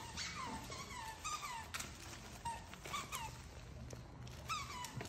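Dog whining: a series of short, high, falling whines, often two close together, repeating every second or so, with faint light clicks between them.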